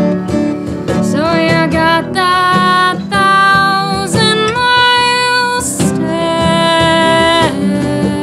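A country blues band playing live: acoustic guitars and an upright piano under a lead melody of long held notes that slide up into pitch.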